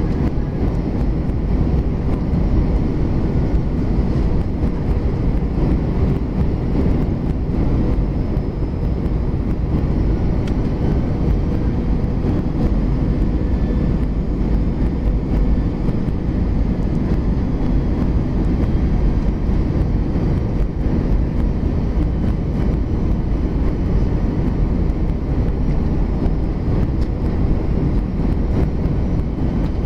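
Airbus A320 cabin noise on final approach, heard from a window seat beside the engine: the engine and rushing air make a steady low rumble with a faint hum running through it.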